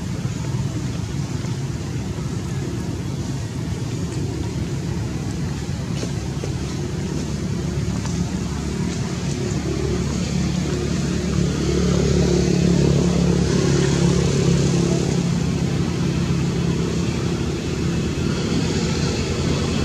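Steady low rumble of motor-vehicle noise, growing louder about twelve seconds in.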